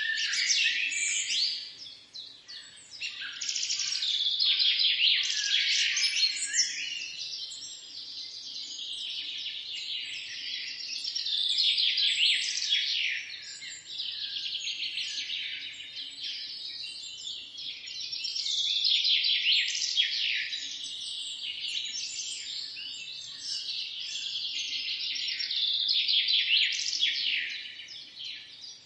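Several small songbirds singing together in a dense morning chorus of rapid chirps, trills and whistles, swelling and fading in loudness.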